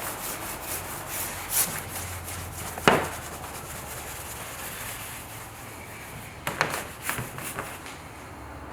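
Steady rubbing against a car's painted panel during clay-bar detailing, with sharp clicks about three seconds in and a few more past the middle.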